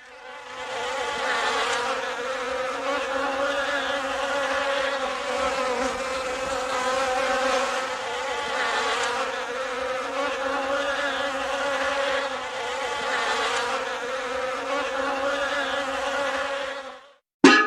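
A fly buzzing steadily and continuously, fading in at the start and stopping near the end; an 'annoying fly buzz' library sound effect. A short, sharp, louder sound starts right at the very end.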